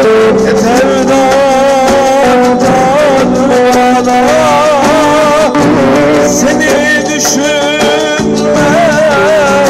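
A man singing an ornamented, wavering melody in Turkish Romani folk style through a handheld microphone and PA, over sustained instrumental backing.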